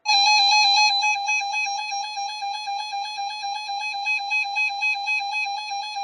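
Electronic alert tone: a single buzzy, mid-high tone that starts abruptly and pulses rapidly, several times a second, easing off somewhat in loudness.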